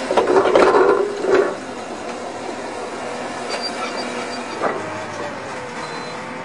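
Underground pipe-laying machine running steadily, with a loud burst of metallic clanking and scraping in the first second and a half and a single clank about five seconds in.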